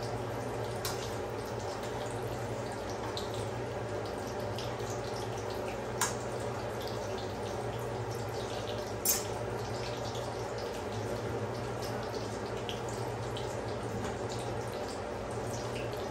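Bread balls deep-frying in hot oil in a karahi over high heat, the oil sizzling steadily with many small pops and crackles as they turn brown. Two sharp clicks stand out, about six and nine seconds in.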